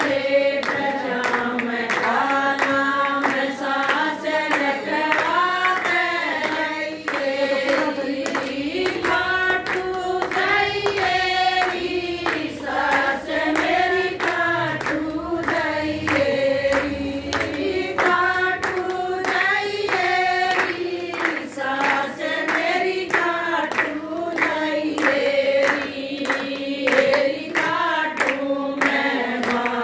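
A group of women singing a devotional bhajan together in chorus, with hand clapping keeping the beat throughout.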